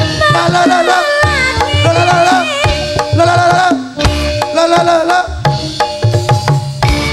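Campursari band playing: kendang hand drums beat a busy pattern under a wavering melody line with vibrato.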